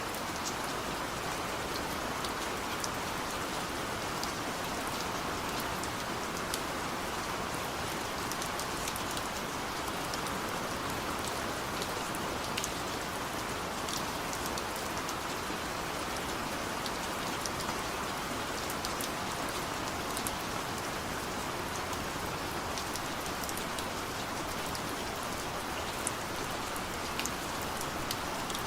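Heavy rain falling steadily, an even hiss with scattered sharp drop hits through it.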